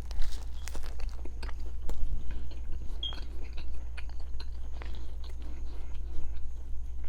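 Close-up sounds of a person biting into and chewing a turkey, egg and cheese biscuit sandwich: wet chewing with many small crackles and smacks, over a steady low hum.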